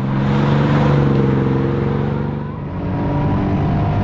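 Fourth-generation Toyota Supra's twin-turbo straight-six running at speed. A steady engine note sags slightly in pitch, dips about two and a half seconds in, then comes back at a different pitch.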